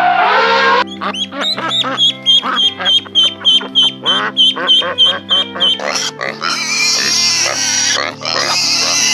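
Ducklings peeping rapidly in high, repeated calls over background music with a steady bass line. An elephant's trumpet, falling in pitch, ends just under a second in, and from about six seconds piglet noises take over.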